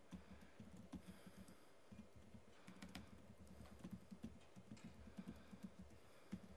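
Faint typing on a computer keyboard: a quick, uneven run of key clicks.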